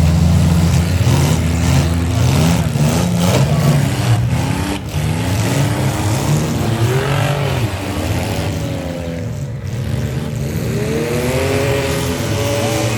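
Several six-cylinder demolition derby cars' engines revving hard, their pitch climbing and dropping over and over, with sharp knocks in the first few seconds, typical of cars crashing into each other.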